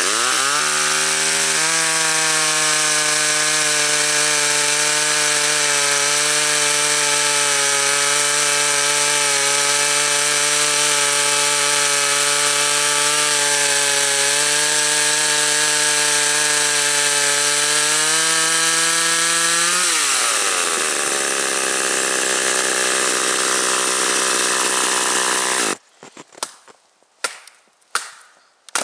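Gas chainsaw revving up and cutting through a log at full throttle for most of the time, then its pitch falling away as the cut ends. Near the end, a few sharp wooden knocks.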